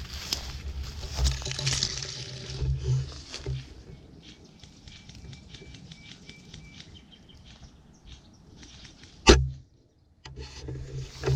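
Rustling and scuffing of clothing and gear rubbing on a body-worn camera as the wearer moves, with low thumps in the first few seconds. After that comes a quieter stretch of faint ticks, then one sharp knock about nine seconds in, a moment of near silence, and louder rustling again.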